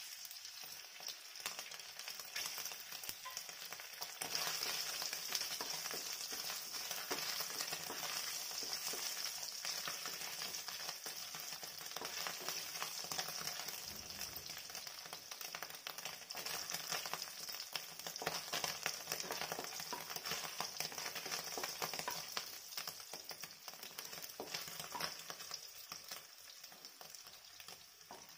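Paneer cubes sizzling as they fry in hot oil in a nonstick kadhai, turned with a wooden spatula. The sizzle grows louder about four seconds in and tails off near the end.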